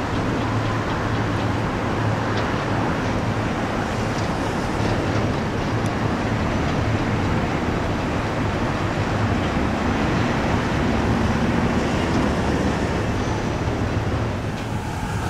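Steady city traffic noise: an even rumble and hiss without a break.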